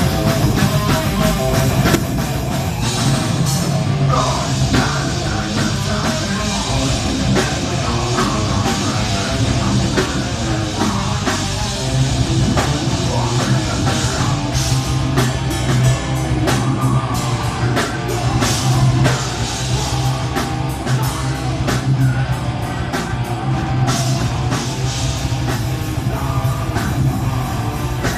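Live heavy metal band playing loudly, with distorted guitars, a pounding drum kit and heavy bass, recorded on a mobile phone so the sound is dense and distorted.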